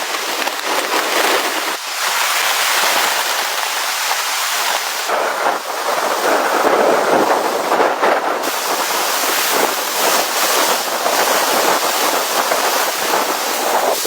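Blizzard weather: a loud, steady rushing of wind and driven snow, swelling and easing a little.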